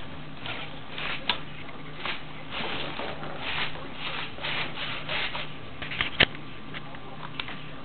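Repeated short rubbing and scraping noises, with two sharp clicks, the louder one about six seconds in, over a low steady hum.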